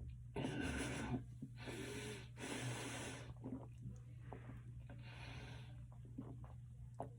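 A person breathing hard in about five long, noisy breaths after gulping down a can of sparkling water. The heaviest breaths come in the first three seconds, then they ease off.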